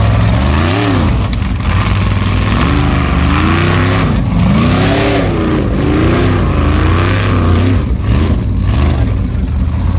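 Formula Offroad buggy's engine revving hard under load as the car climbs a steep dirt hill, its pitch rising and falling again and again, over a steady low drone.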